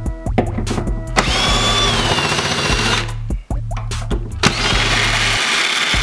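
Power drill running in two bursts of about two seconds each, backing out the screws of an old door lock, over background music with a steady beat.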